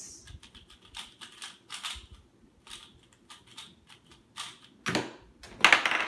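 Computer keyboard keys clicking in short irregular runs of taps, with a couple of louder knocks near the end.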